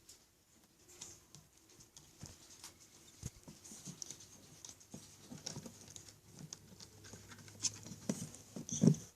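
Small pets scampering and scrabbling about on a kitty condo: a light, irregular patter of claws and paws with soft knocks, the loudest thump just before the end.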